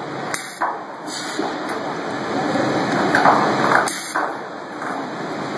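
Stud welding gun firing a stud onto steel plate: a short, loud crackling hiss of the arc about three seconds in, with a few sharp clicks, over a steady noisy background.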